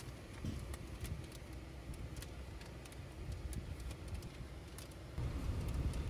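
Inside a moving car: a low road and engine rumble with scattered light clicks and rattles. About five seconds in the rumble steps up louder as the car runs along a rough unpaved track.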